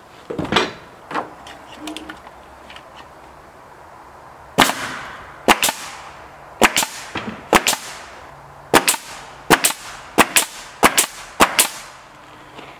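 DeWalt siding nail gun driving nails into a rough sawn board: about nine sharp shots, roughly one a second, starting about four and a half seconds in. A few lighter knocks come in the first two seconds.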